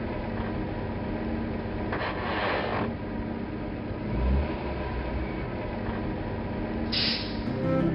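Cartoon tow truck's engine sound effect humming steadily as it manoeuvres. A short hissing noise comes about two seconds in, a low thump about four seconds in, and another hiss near the end.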